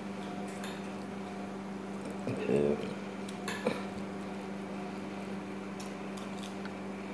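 Hand-eating sounds: fingers working rice and roast chicken on a ceramic plate, with soft squishes and light clicks against the plate, over a steady electrical hum. A brief pitched sound, the loudest moment, comes about two and a half seconds in, followed by a sharp click.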